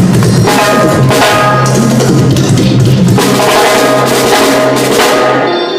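A live band playing during a sound check: a drum kit with bass drum and snare over sustained bass notes that change about three seconds in. The music breaks off near the end.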